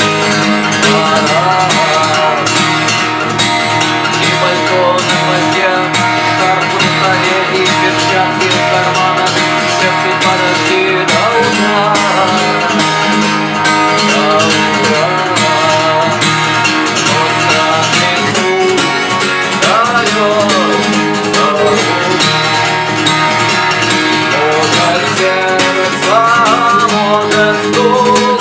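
Acoustic guitar strummed steadily in the fast galop pattern: a three-stroke figure of down with all fingers, up with the thumb, down again, repeated without a break.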